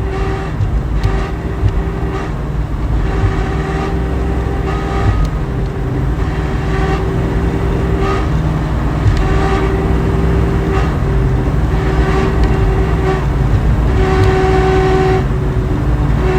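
A 1969 Mustang's Ford 9-inch rear end howling at about 50 mph under light throttle: a steady whine over the engine and road rumble that fades and returns every second or two. The owner takes it for a fault in the third member, with the gear backlash and setup suspect.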